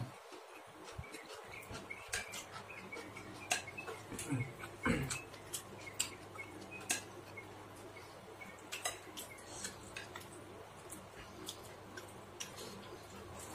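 Close-miked eating of instant fried noodles: chewing and mouth clicks, with scattered light clicks and taps of a metal spoon and chopsticks against a ceramic plate.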